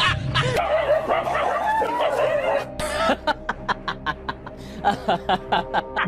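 Background music with laughter over it, which breaks into quick ha-ha bursts, about four a second, from about halfway through.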